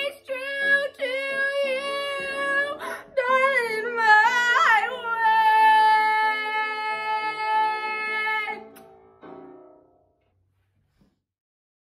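Young woman singing the closing phrase of a musical-theatre song over an accompaniment, ending on one long held note from about five seconds in to about eight and a half. A last soft accompaniment chord fades out, and the sound stops about ten seconds in.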